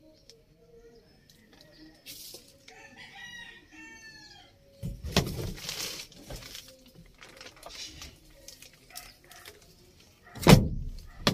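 A rooster crows once, a long call lasting about two seconds, starting a couple of seconds in. Around five seconds in there is a loud rustling handling noise, and near the end a sharp knock that is the loudest sound.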